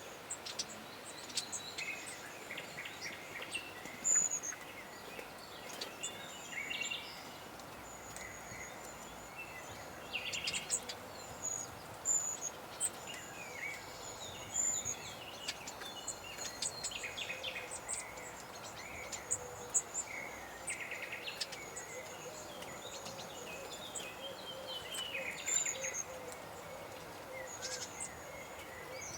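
Wild woodland songbirds chirping and trilling, with many short calls scattered throughout, over a faint steady high-pitched insect hum.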